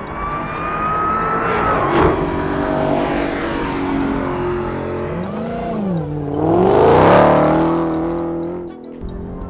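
Dodge Challenger Super Stock's supercharged 6.2-litre V8 accelerating hard. The engine note climbs, with a sharp crack about two seconds in. The revs then dip and surge again to the loudest point about seven seconds in, and fade near the end.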